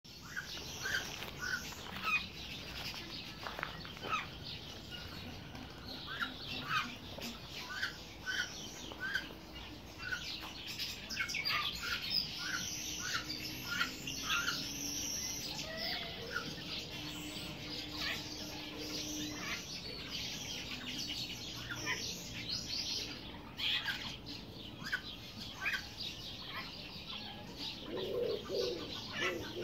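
Many small birds chirping and twittering without a break, with a run of short calls repeated about twice a second through the middle. Near the end, lower calls join in.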